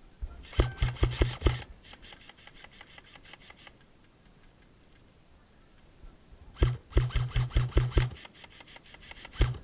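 Airsoft guns firing full-auto bursts: rapid clicking shots at about ten a second in three bursts of roughly a second each, about half a second in, past the middle and at the very end. A fainter run of shots follows the first burst.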